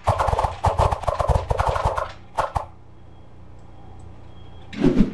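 Rapid typing that triggers the Tickeys keyboard sound-effect software's sword ("劍氣") effect: a quick run of clashing hits for about two seconds, then one last hit.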